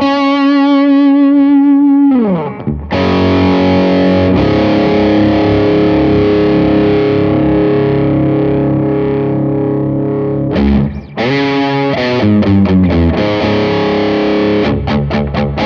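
Distorted electric guitar played through a Blackstar JJN-20 MkII amp: a held note that slides down about two seconds in, then a long sustained chord, a brief gap, and a run of shorter chords and stabs near the end that ring out.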